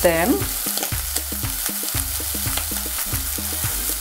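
Beef tripe and onions sizzling steadily as they fry in a pot, while chopped green bell pepper and a crumbled stock cube are stirred in.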